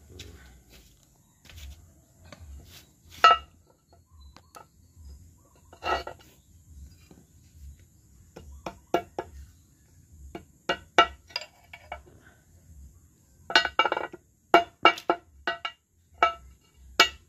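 Hand hammer striking the steel housing of a car's ball joint on a steel plate: sharp metallic clinks that ring briefly, a few spaced blows at first, then quicker runs in the second half. The blows close up the worn, loose joint to make it tight again.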